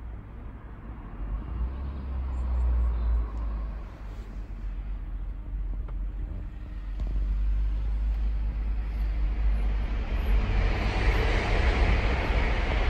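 Outdoor road-traffic noise: a steady low rumble, with the hiss of passing vehicles growing louder from about ten seconds in.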